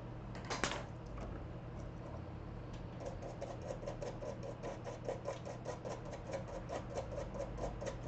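Quick back-and-forth scrubbing on a laptop circuit board to clear hardened solder flux, in even strokes about six a second, starting about three seconds in, after a single sharp scrape near the start.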